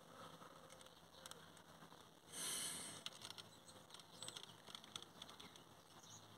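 Near silence: faint room tone with a short soft hiss about two and a half seconds in and a few faint ticks after it.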